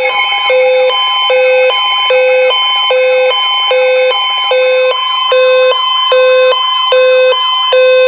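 NOAA weather alert radio sounding its warning alarm for a severe thunderstorm warning: steady electronic tones with a loud beep repeating about every 0.8 seconds.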